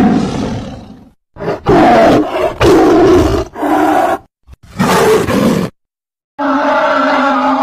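Big-cat roar sound effect used as the Smilodon's voice: about five loud roars and snarls in quick succession, then a longer, steadier pitched call near the end.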